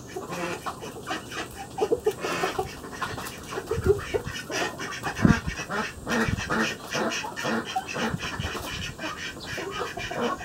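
Ducks quacking: many short, overlapping calls one after another, loudest around the middle.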